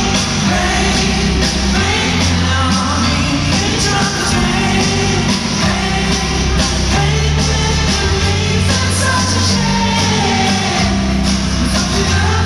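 Live pop-rock band playing in a large arena, with singing, strummed acoustic guitars and drums over steady bass notes that change every second or two.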